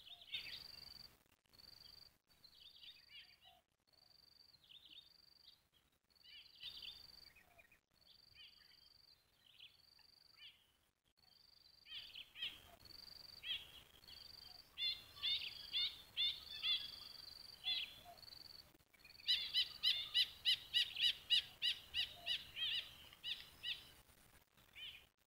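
Songbirds calling: repeated short high whistled notes mixed with quick falling chirps. Near the end comes a fast run of notes, about three a second.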